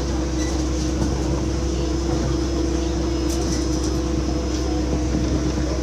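Steady running noise inside a moving Palm Jumeirah Monorail car: an even rumble with a constant hum over it.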